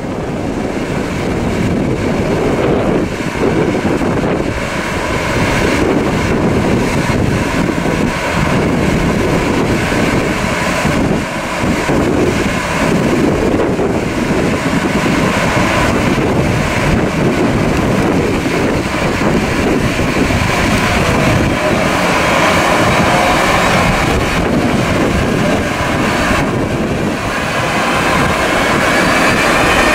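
Siemens Vectron (Sr3) electric locomotives pulling a train away from a standstill: a steady rumble of the moving train, with a rising, several-toned electric whine from the traction equipment in the last third as it picks up speed. Wind buffets the microphone.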